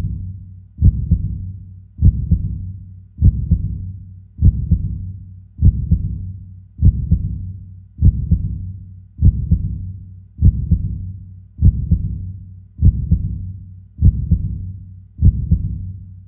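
Heartbeat sound effect: a slow, regular lub-dub, each beat a quick double thud with a deep, fading tail, about fifty beats a minute.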